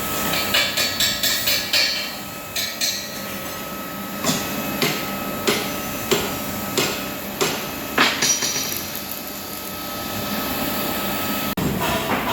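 Hammer blows on metal parts: a quick run of strikes, then single blows about every half second to a second, with a faint steady tone underneath.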